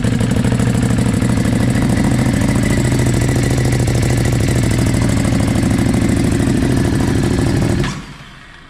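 Ducati Hypermotard SP's L-twin engine idling steadily, just after being started, then switched off and falling silent abruptly near the end.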